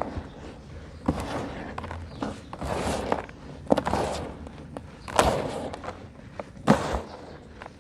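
Dry lumps of sand mixed with concrete being crumbled by hand, with irregular crunching and gritty crumbling and several sharp snaps as pieces break.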